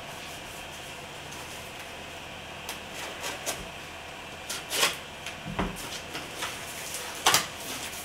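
Plastic packaging of a RAM module being handled and opened: scattered sharp clicks and rustles from about three seconds in, the loudest near five and seven seconds, with one dull knock in between.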